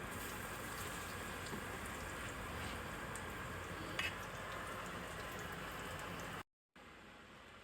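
Oil sizzling steadily as banana slices fry in a pan, with one short sharp click about four seconds in. The sizzle cuts off abruptly about six and a half seconds in and gives way to a quieter background.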